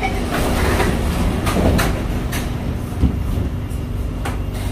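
SMRT C751B train's sliding doors closing, with several clicks and a thump about three seconds in as they shut, over the steady rumble of the train carriage at the platform.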